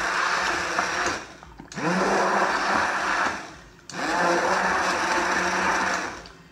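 Cuisinart Quick Prep immersion hand blender puréeing canned whole peeled tomatoes in a glass bowl. It is run in pulses: the motor stops about a second in, restarts with a rising whine, stops again in the middle, then restarts once more and cuts off near the end.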